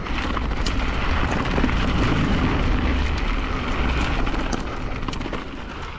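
Wind buffeting the mic and mountain-bike tyres rumbling over rock on a fast descent, with scattered sharp clicks and knocks from the bike rattling. It eases off near the end.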